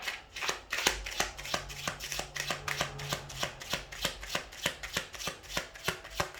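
A deck of reading cards being shuffled by hand: a steady run of quick, crisp slaps, about four or five a second.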